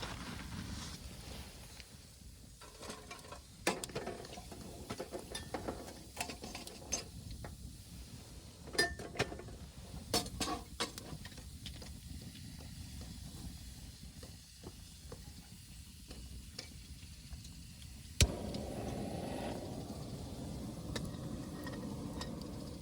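Camp gear and cookware being handled: scattered light clinks and knocks, then one sharp click about eighteen seconds in followed by a steady hiss.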